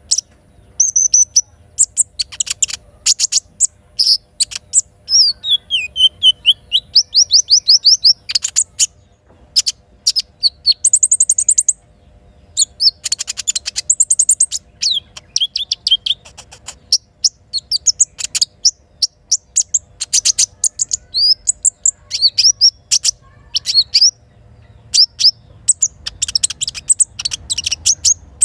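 Crimson sunbird (sogok ontong) singing: rapid, high-pitched chirps and trills in repeated bursts, some runs of notes falling in pitch.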